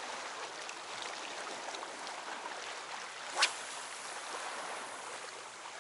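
Steady wash of sea water on a rocky shore, with one short sharp click about three and a half seconds in.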